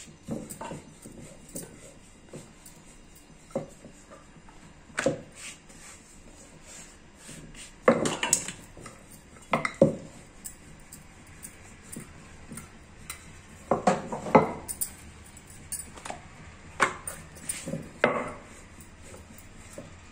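Wooden rolling pin rolling out chapati dough on a round wooden board, with irregular wooden knocks and clacks as the pin is rolled, lifted and set down. The loudest clusters come about eight, fourteen and eighteen seconds in.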